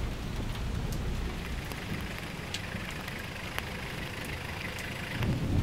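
Vehicle engine running steadily with a low rumble while rain falls, with scattered ticks of drops and a louder low rumble near the end.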